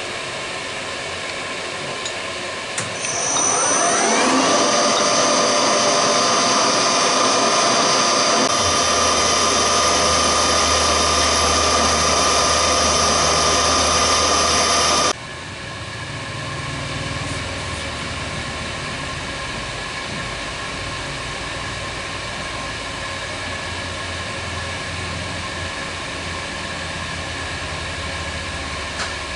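Milling machine spindle spinning up with a rising whine, then running steadily while an engraving bit cuts a graduation line into a white plastic collar. The whine cuts off suddenly about halfway through, leaving a steady hum.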